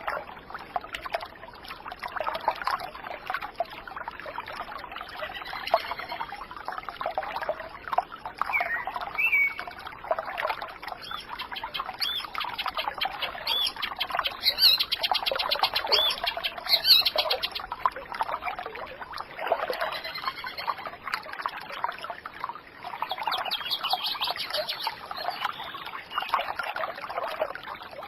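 Running water trickling and burbling, with small birds chirping and calling over it, including a fast trill of rapid repeated notes around the middle.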